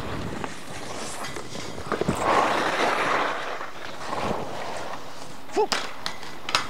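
Skis scraping and sliding over packed snow, swelling about two seconds in, with two sharp knocks near the end.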